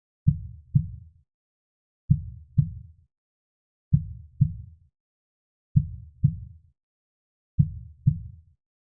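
Heartbeat: a low double thump, lub-dub, repeating slowly and evenly, five beats about one every two seconds, with silence between them.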